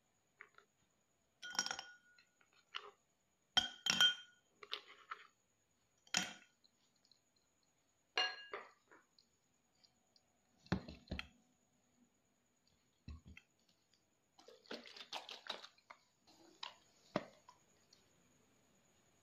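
Ice cubes dropped one at a time into a drinking glass, each landing with a clink, several with a short ring of the glass, and softer knocks between them. Near the end a couple of seconds of rustling handling noise.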